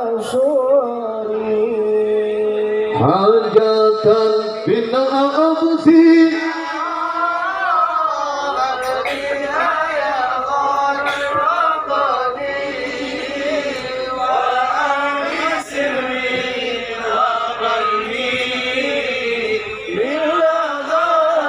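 Male voices chanting sholawat, Islamic devotional praise of the Prophet, in long melodic lines that rise and fall.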